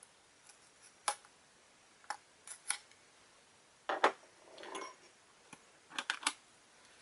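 Hobby knife blade clicking and scraping against a small metal tin as it slits the seal, in a few short, separate strokes with the loudest about four seconds in. Near the end the tin's lid gives a couple of sharp clicks as it is pulled open by hand.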